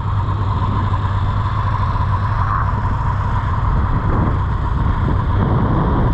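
Snowmobile engine running at a steady speed, a constant whine over a low drone.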